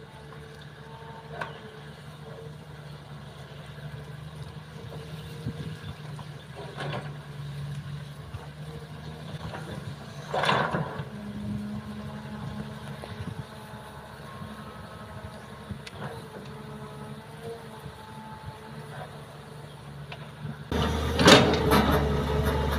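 Kobelco hydraulic excavator's diesel engine running steadily as it digs soil, with a few knocks from the working bucket, the loudest about ten seconds in. Near the end the engine sound turns suddenly much louder and closer, with clattering.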